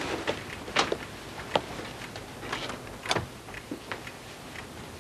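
A few scattered short knocks and clicks, one sweeping down in pitch just after three seconds in, over a faint steady hiss.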